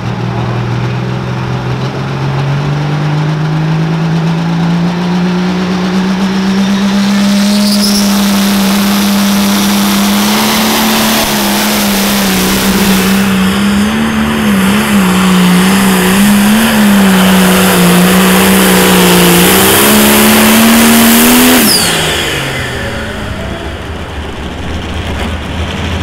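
Turbocharged diesel pro stock pulling tractor at full throttle on a pull. Its engine pitch climbs over the first several seconds, then holds high and wavers as it hauls the sled, with a hiss and a high whistle over it. About 21 seconds in the engine note falls off sharply as the pull ends.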